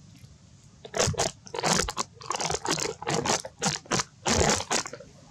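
A long-tailed macaque biting into and chewing crisp fruit: a run of irregular, loud crunches starting about a second in.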